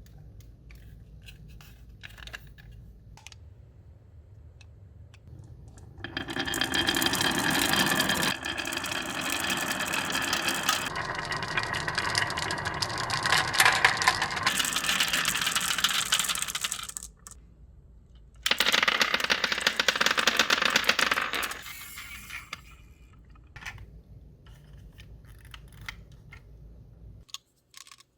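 Many marbles rolling and clattering down a wooden marble run: scattered clicks, then a dense rattling rush from about six seconds in that stops suddenly near seventeen seconds, and a second shorter rush a second later.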